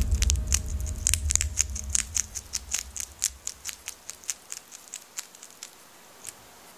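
Hedgehog chewing: a run of small, crisp clicking crunches a few times a second that thin out and fade, stopping about six seconds in. A low rumble underneath fades out by about halfway.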